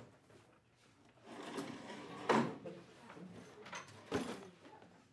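Students settling at classroom desks: rustling and clatter of bags and furniture, with a sharp knock about two seconds in and another near the end.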